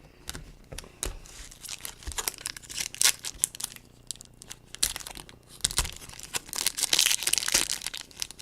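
A foil trading-card pack being torn open and its wrapper crinkled, with irregular crackling and rustling that is loudest near the end.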